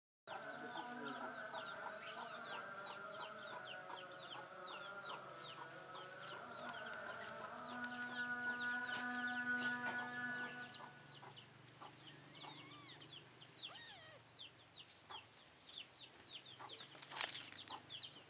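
Chickens in the background: chicks peeping in a steady stream of short, high, falling calls, about three or four a second, with hens clucking. A steady hum runs underneath and stops about eleven seconds in, and there is a sharp click near the end.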